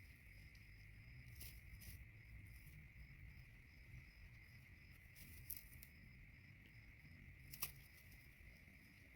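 Faint outdoor insect chorus: a steady high drone with a faint chirp repeating a few times a second, broken by a few brief soft clicks or rustles.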